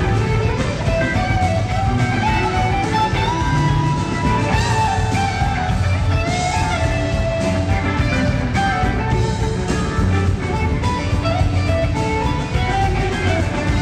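Live rock band playing an instrumental jam: an electric guitar lead with bent, gliding notes over bass guitar and drums with cymbals, heard from the audience.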